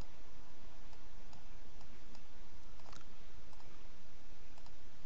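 A few faint computer mouse clicks over a steady background hiss, the clearest click about three seconds in.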